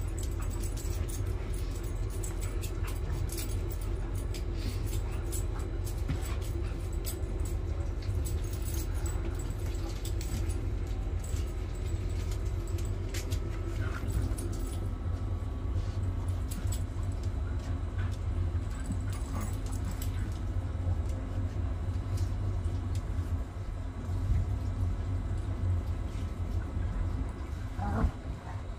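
Boxer dogs playing on artificial turf, their collar tags jingling with scattered small clicks, over a steady low machine hum; a couple of short whine-like glides come about halfway and near the end.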